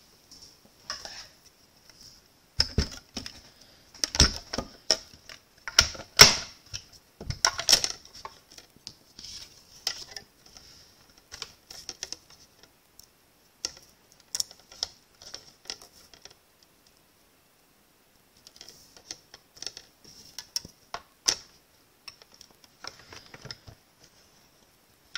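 Clear acrylic cutting plates, a thin metal die and cardstock being handled and set onto the platform of a die-cutting machine on a hard countertop: irregular clicks, taps and light clatter, with a pause about two-thirds of the way through.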